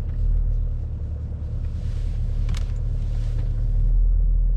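BMW X5's engine running as the SUV pulls away, heard from inside the cabin as a steady low hum that grows a little louder near the end, with a single short click about two and a half seconds in.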